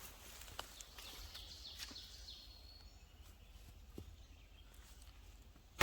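Quiet woods with a bird's run of high, falling chirps from about a second in, and a few faint ticks. At the very end, one sharp loud crack as a traditional bow's string is released on a shot.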